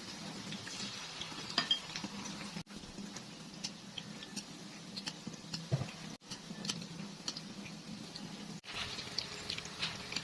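A cooking utensil clicking and scraping against a pan as food is stirred, over a light sizzle of frying, with frequent sharp clinks throughout.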